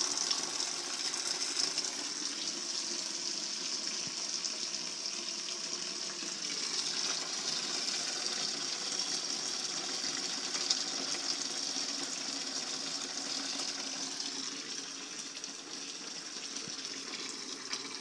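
Water pouring steadily from a steam boiler's drain valve into a plastic tub already partly full, splashing into the pooled water as the boiler is drained and flushed.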